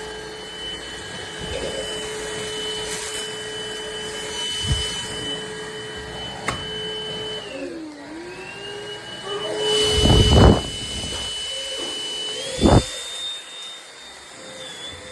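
Rowenta XPert 6.60 cordless stick vacuum's motor running with a steady whine. About halfway through, its pitch dips and then climbs back up. There are a few knocks, and two louder thumps come near the end.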